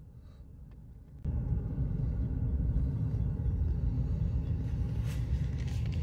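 Steady low vehicle rumble heard from inside a moving car. It comes in abruptly about a second in and carries faint steady tones above it.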